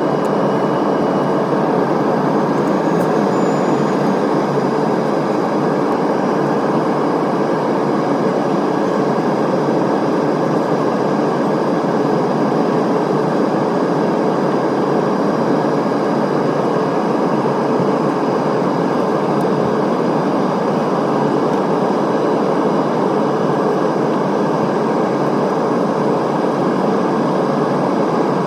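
Steady cabin noise inside an Airbus A320neo airliner in flight: an even, loud rush of airflow and engine noise that does not change.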